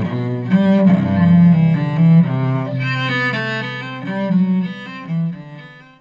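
Cello playing a melody of bowed notes, fading away near the end.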